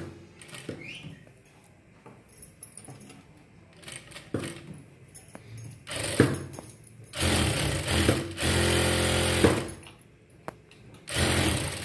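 Electric sewing machine stitching in several short runs in the second half, starting and stopping with brief pauses between.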